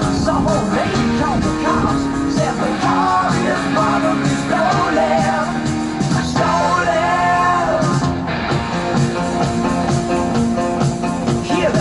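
A rock song playing, with a singing voice over a steady instrumental backing.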